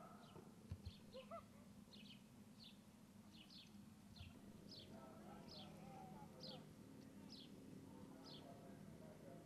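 Faint, regular high chirps, each a short falling note, about one and a half a second: a small bird calling.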